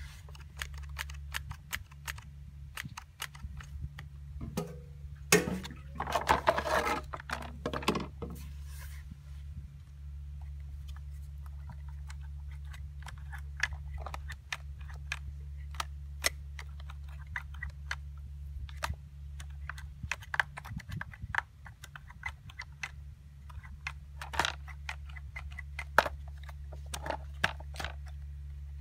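Scattered clicks and taps of hands handling the plastic housing of a STIHL MS170C chainsaw as the top cover comes off and the air filter is handled, with a denser, louder burst of rattling about six seconds in. A steady low hum runs underneath.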